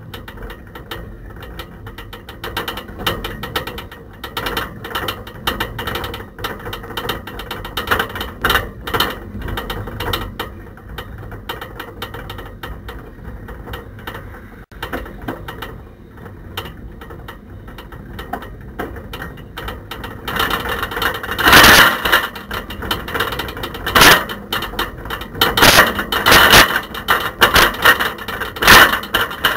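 A camera rattling in a bicycle basket as the bike rides along, a dense, irregular clatter that gets louder, with heavier jolts, from about twenty seconds in.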